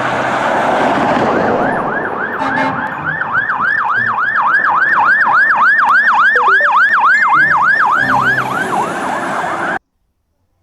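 Emergency-vehicle siren in a fast yelp, about three to four quick swoops a second, over a steady rushing noise. It stops abruptly near the end.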